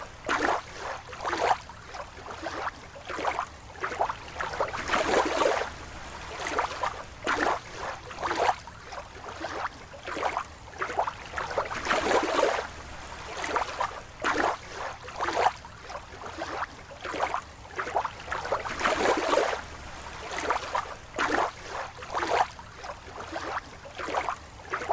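Water splashing and lapping in irregular surges, about one or two a second.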